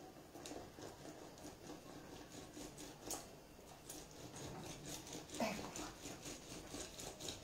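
A lemon half twisted and pressed on a plastic hand citrus juicer: a run of short, rhythmic rubbing strokes, a few a second, with one louder, lower sound about five and a half seconds in.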